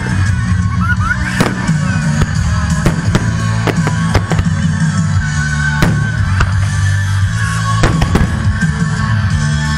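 Aerial fireworks shells bursting with repeated sharp bangs at irregular intervals, over loud music with sustained low notes.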